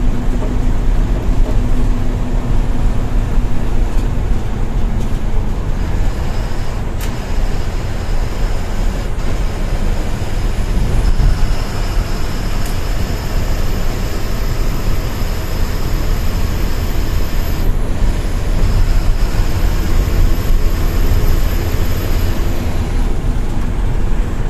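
Bus engine and road noise heard from inside the cabin of a moving TNSTC bus at highway speed, a steady low drone. A faint high whine rises slowly in the second half, breaks off sharply, then comes back.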